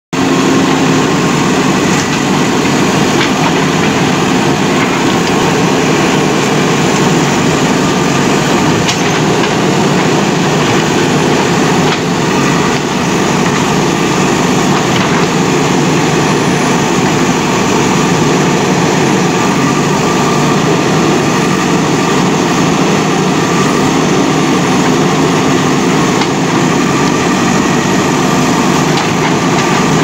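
JCB backhoe loader's diesel engine running steadily at close range while the hydraulic backhoe arm digs.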